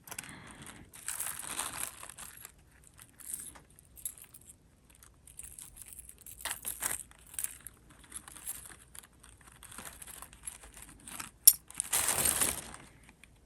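Costume jewelry being handled and sorted by hand: small metal pieces and chains clicking and jangling, with a few spells of rustling and crinkling, the loudest near the end after one sharp click.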